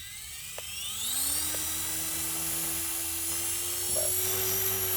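HobbyKing HK-250GT electric RC helicopter spooling up: the motor and rotor whine rises in pitch, then levels off at a steady whine about a second in.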